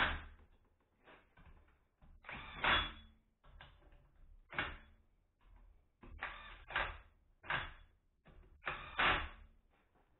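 Cordless impact wrench hammering on a car wheel's lug nuts in about half a dozen short bursts, with brief pauses between them.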